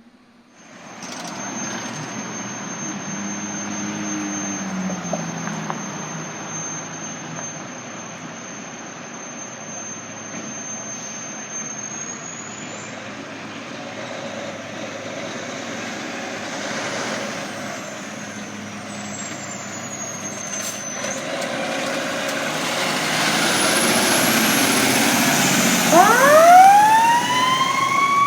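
Fire ladder truck's engine running under way with road noise, its pitch stepping down a few times a few seconds in, and a steady high whine over the first half. Near the end the siren starts, winding up quickly in pitch and holding high.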